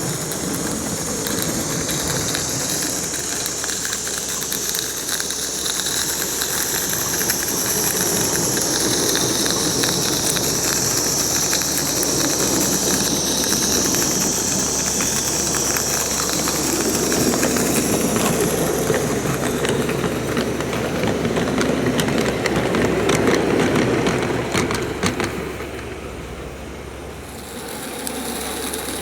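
A 16mm-scale live steam model locomotive running with its train: a steady steam hiss over a rapid rattle and clicking of small wheels on the track. The hiss fades about two-thirds through and the whole sound drops near the end.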